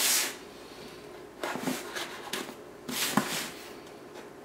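Handling of an iPad mini's retail box and packaging: a brief rustle, then a few more short rustles and a light click as it is picked up and turned.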